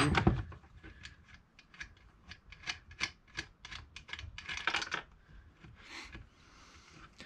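Irregular light clicks, ticks and rubbing from a gas chainsaw being handled and worked on, with a denser flurry of clicks about two-thirds of the way in and a short soft rasp near the end.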